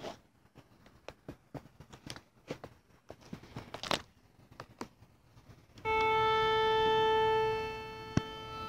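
Scattered small clicks and knocks, then the A4 key of a Kawai RX-5 grand piano struck once for tuning. The note sounds clear and steady for about a second and a half, then begins to fade, and a single sharp click comes near the end.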